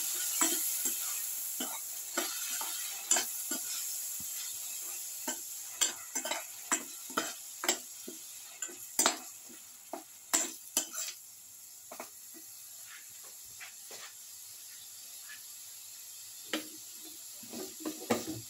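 A metal spoon scrapes and taps against a pan, stirring a sizzling mixture of ground spinach and potatoes. The sizzle is strongest at first and fades over the first several seconds, leaving scattered scrapes and clicks.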